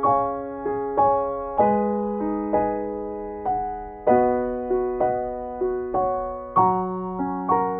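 Slow, gentle solo piano music, a new note struck about every half second and left to ring.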